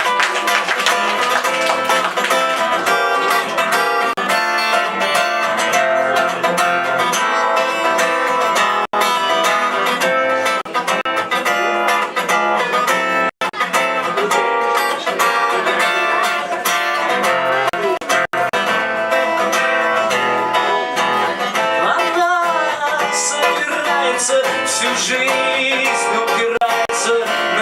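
Acoustic guitar playing the instrumental introduction to a song.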